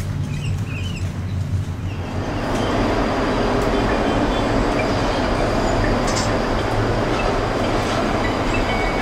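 Steady mechanical running noise of a cable car cabin travelling along its cables, heard from inside the cabin; it sets in about two seconds in after a low hum.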